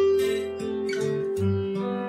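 Instrumental background music: plucked acoustic guitar notes, one note ringing on under the others.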